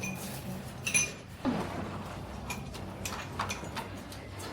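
Tableware clinking at a meal: a scattering of light knocks and chinks of dishes and cutlery, some with a brief ring.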